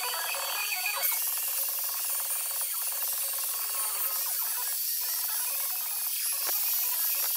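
Corded electric chainsaw cutting into a hardwood root block, a steady buzz with a few short dips as the bar is worked through the wood.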